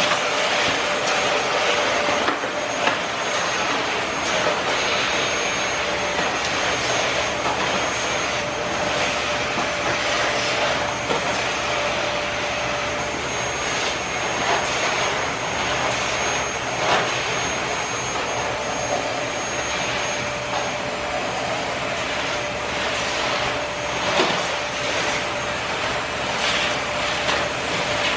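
Vacuum cleaner running steadily, its motor giving a steady whine, with a few light knocks now and then.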